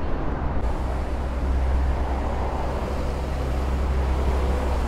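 Steady city traffic noise with a strong low rumble and no distinct events.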